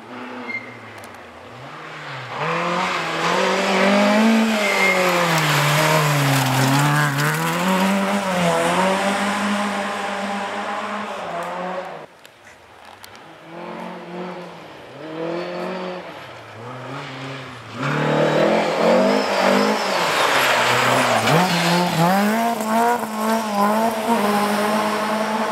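Rally car engines revving hard on a gravel stage, the pitch climbing and dropping repeatedly with throttle and gear changes as a car comes close. The level drops suddenly about halfway, the engine sound is fainter for a few seconds, then a car comes close again and revs hard to the end.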